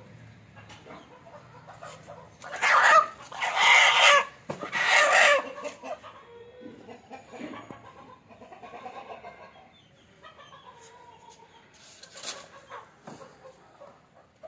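Aseel hen calling out while held and given eye drops: three loud calls in quick succession two to five seconds in, softer clucking after, and one more sharp call near the end.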